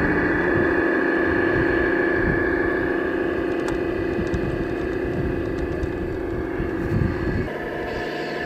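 Electric radio-controlled semi truck driving over dirt while towing a loaded lowboy trailer: a steady whine over a low rumble. The lower part of the whine stops about seven and a half seconds in.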